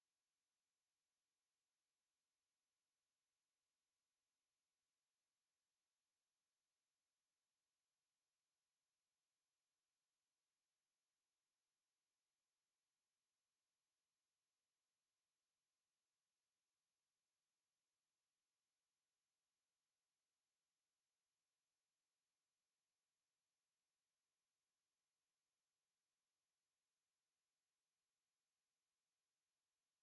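A single steady high-pitched sine-wave test tone at 11,285 Hz, held unbroken at a constant level.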